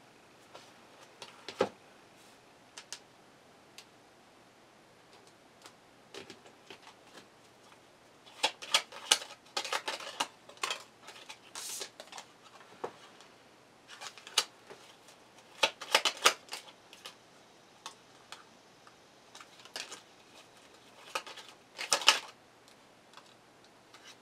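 A deck of tarot cards handled and shuffled by hand: spells of crisp card flicks and slaps, about eight, fourteen and twenty-one seconds in, with a few single taps of cards on the table in between.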